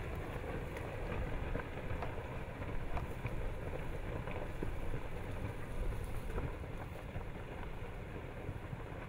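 Rock avalanche from the partially collapsing lava dome of Paluweh volcano: a continuous low rumble with scattered sharp clacks of tumbling boulders, easing slightly near the end.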